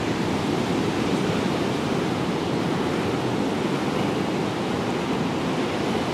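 Steady rush of ocean surf breaking on the shore.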